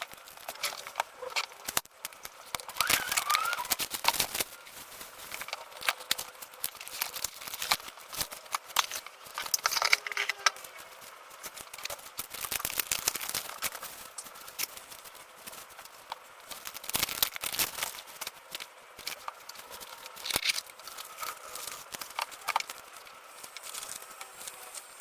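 Packaging being handled: a run of irregular clicks and taps with bouts of crinkling of cardboard and plastic.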